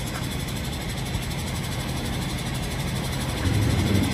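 Heavy tow truck's diesel engine running steadily, a low rumble that grows louder about three and a half seconds in.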